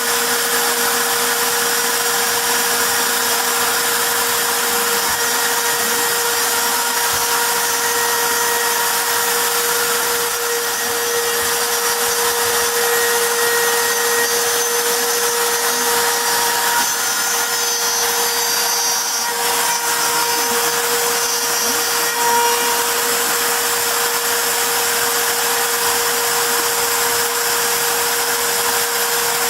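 CNC router spindle running at a steady high-speed whine while engraving wood, over a constant dense hiss.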